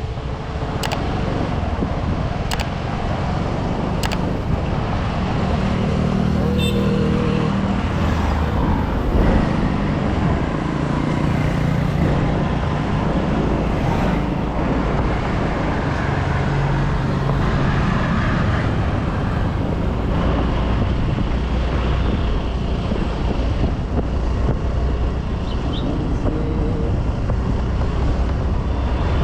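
A motor scooter being ridden on the road: its engine and road noise rise and fall in pitch with the throttle, and traffic and wind buffet the microphone.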